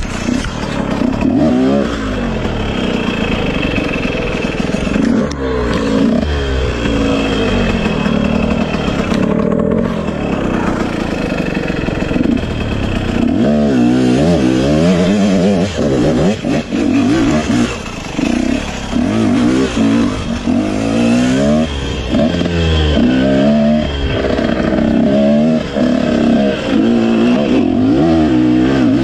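Off-road dirt bike engine running under throttle over a rough trail. It holds a fairly steady pitch at first, then from about halfway it revs up and down about once a second as the rider works the throttle.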